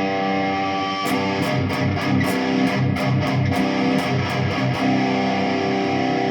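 Jackson Dinky electric guitar played with its tone knob rolled all the way down, a 242J capacitor in the tone circuit. A chord rings on, then picked notes and strums begin about a second in.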